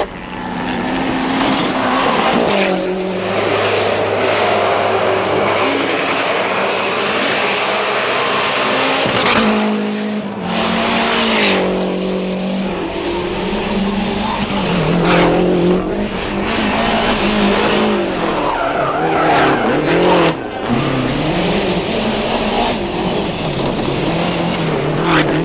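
Group A Lancia Delta rally cars' turbocharged two-litre four-cylinder engines revving hard, the pitch climbing and dropping repeatedly through gear changes and lifts, with tyres skidding on loose gravel. The sound breaks off abruptly several times as one car's run gives way to another's.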